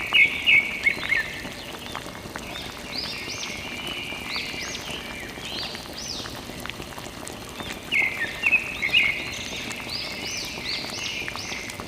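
Repeated high chirping animal calls, each a short arched note, with bursts of quick bright chirps near the start and again about eight seconds in, over a faint steady hiss.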